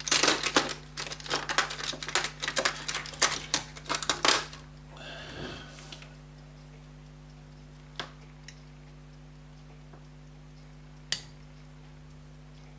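Rapid scratching and clicking of a metal tool scraping a mark onto a small metal pocket-watch part, ending about four and a half seconds in, followed by a brief softer scrape and later two single light clicks.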